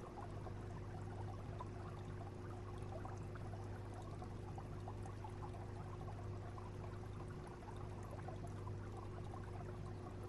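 Aquarium water circulation: a steady trickling, splashing flow of water over a constant low hum.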